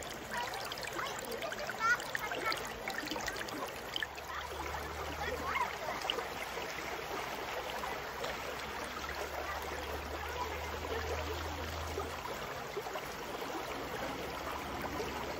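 Shallow river water flowing and gurgling over rocks close to the microphone, a steady rush with many small splashes, busiest in the first few seconds.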